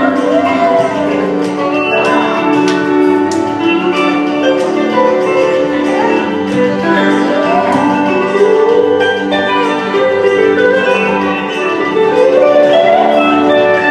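Live music: a woman singing into a microphone over electric guitar and a steady accompaniment. Her voice slides up and down through long phrases.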